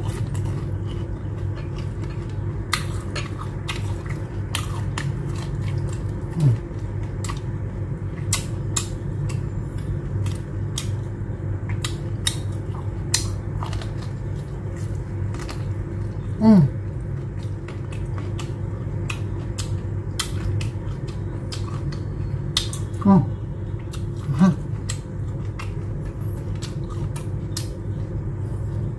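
Close-up eating sounds: chewing fried shell-on shrimp and fresh green chili, with many sharp crunches and wet mouth clicks over a steady low hum. Four short sounds slide down in pitch, the loudest about midway.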